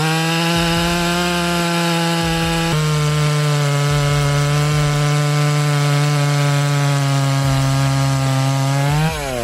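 Chainsaw held at full throttle through a cut in wood. Its steady high engine note dips a step about a third of the way in as it loads up in the cut, then falls away near the end as the throttle is released.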